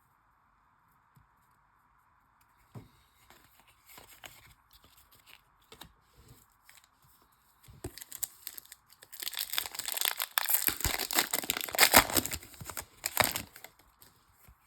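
A foil trading-card pack being torn open and its wrapper crinkling, mostly in the second half, after several seconds of faint handling clicks.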